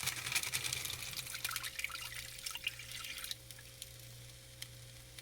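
Water poured from a cup into a hot pan, hissing and crackling as it hits the heated metal, then dying down after about three seconds.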